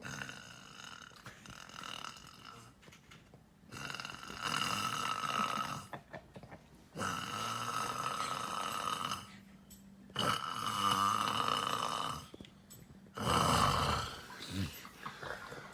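A man snoring in his sleep: faint at first, then four loud snores at a steady rhythm, each about two seconds long, with quieter breathing in between.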